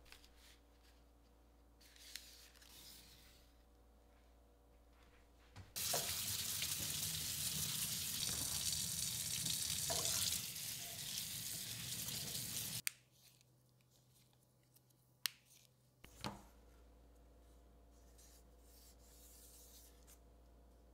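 Kitchen tap running water onto snap peas in a bamboo basket over a stainless steel sink, a steady splashing rush for about seven seconds that stops abruptly. A few light clicks follow.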